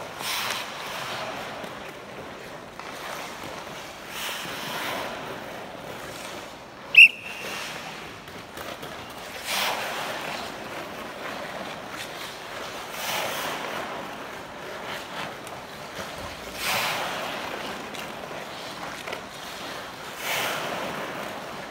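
Hockey skate blades carving and scraping on rink ice in repeated swishes every three to four seconds as a player skates tight turns through a drill. One sharp clack with a brief ring about seven seconds in is the loudest sound.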